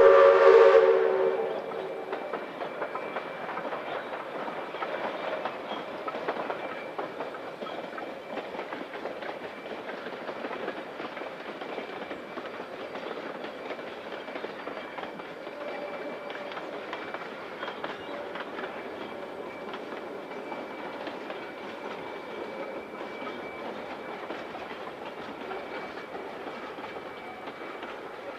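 Steam locomotive's whistle sounding briefly at the start, then the steady clatter and rumble of the train running along the track.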